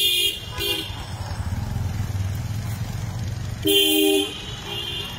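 Vehicle horn honking in street traffic: a short toot just under a second in, then a longer honk and a short toot near the end, over a low traffic rumble.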